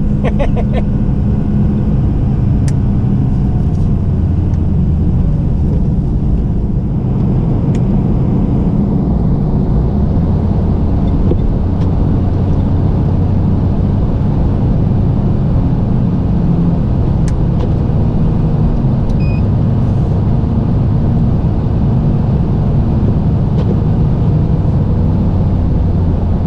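Truck engine and road noise while driving at a steady speed on snowy roads, a continuous low rumble.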